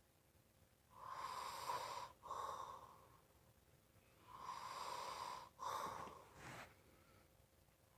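A person breathing loudly, twice drawing a long breath with a whistling tone, a brief catch, then breathing out, about three seconds apart.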